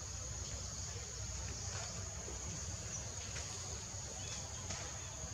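Steady high-pitched drone of insects, unbroken throughout, over a low rumble.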